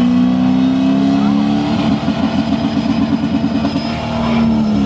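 Drag cars' engines held at high revs on the starting line, a loud steady note that rises slightly and stutters rapidly for about two seconds in the middle.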